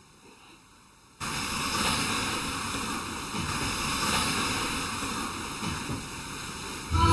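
A steady rushing hiss of noise, like wind on a microphone, that starts suddenly about a second in.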